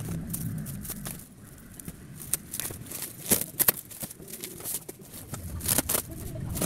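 Clear plastic packaging crinkling and rustling as it is handled, with irregular sharp crackles, a few louder ones about three and a half seconds in and again near the end.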